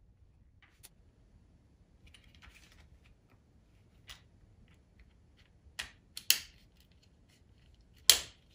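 Plastic cassette shell cracking as its sealed seam is squeezed apart by hand: faint scraping, then a handful of sharp snaps, the loudest near the end.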